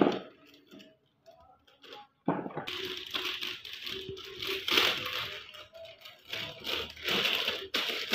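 A clear plastic bag crinkling and rustling as a toy is turned over and handled inside it, in uneven crackles that start about two seconds in.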